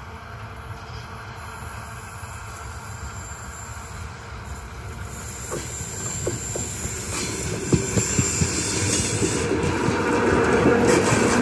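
ER9E electric multiple unit approaching and passing close by, its running noise growing steadily louder. From about halfway, the wheels click over rail joints. Near the end comes the full rush of the passing cars.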